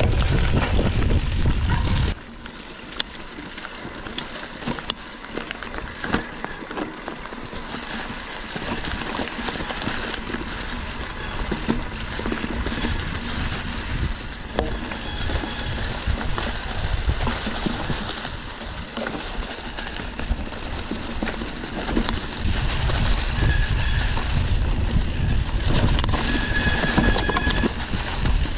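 Wind buffeting the camera microphone on a moving bicycle, with rattles and clicks from the bike and road surface. The heavy wind rumble drops away about two seconds in, leaving the lighter rattling, and comes back strongly for the last several seconds.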